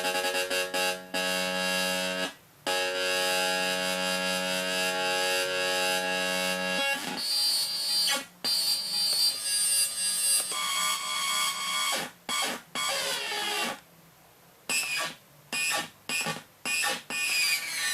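Electronic sound-effects synthesizer producing buzzy, alarm-like tones. A steady low buzzing tone breaks off once, then at about seven seconds gives way to a series of higher electronic tones that cut in and out, with pitch sweeps near the end.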